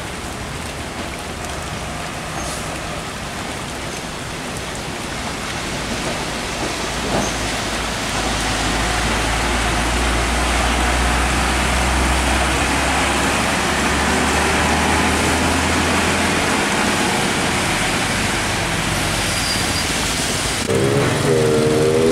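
Heavy diesel trucks passing on a wet road in the rain, with a steady hiss of rain and tyres on wet asphalt. A truck-and-trailer's engine rumbles louder as it goes by, then fades. Near the end a wavering pitched tone sets in.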